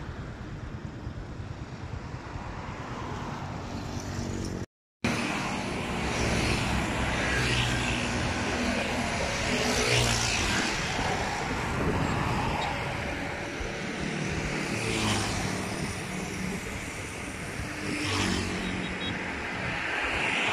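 Road traffic close by: motorbike and truck engines passing one after another with tyre noise, each swelling and fading, several times. The sound cuts out briefly about five seconds in.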